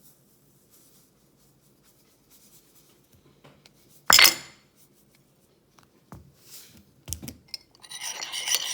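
Spoon against a bowl: one sharp loud clink about four seconds in and a couple of lighter knocks, then steady rasping scrapes near the end as the shampoo, water and salt mixture is stirred into slime.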